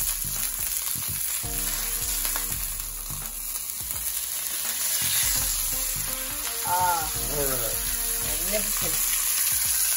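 Ribeye steak searing in a hot cast iron skillet with a steady sizzle. The sizzle grows louder about five seconds in, as the steak is turned over onto its raw side with metal tongs.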